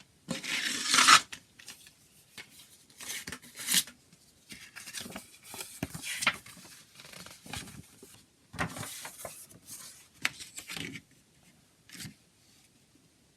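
A CD's packaging being handled and unwrapped: plastic crinkling and tearing in irregular bursts, with a few sharp clicks, the loudest about a second in.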